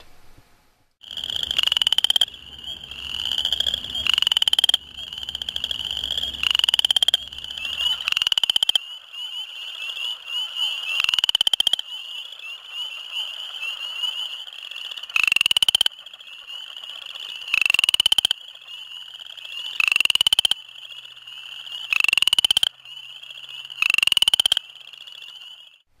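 Western chorus frog calling: about ten short, loud pulsed trills, one every two to three seconds, over a steady high-pitched chorus of other frogs.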